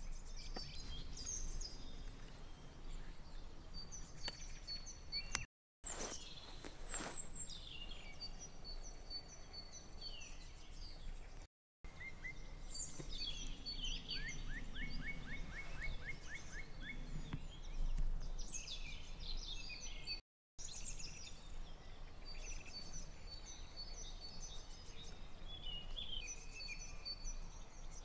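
Several songbirds singing at once, with overlapping short phrases and, about halfway through, a fast run of repeated downward-sweeping notes. The sound drops out completely three times for a moment.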